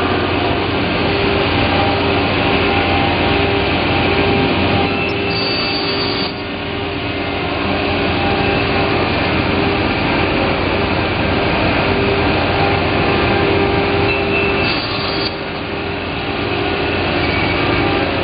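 Sliding table panel saw running, a steady loud machine noise, with two short drops in level about six and fifteen seconds in.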